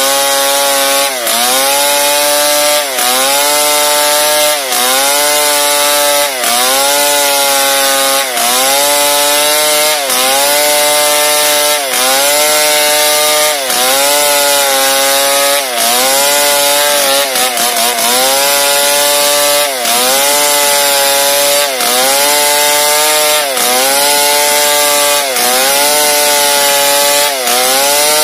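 Stihl MS 382 two-stroke chainsaw running at full throttle while ripping a log lengthwise along the grain, using an Oregon crosscut chain reground into a ripping chain. About every two seconds the engine note dips briefly under the load of the cut and recovers.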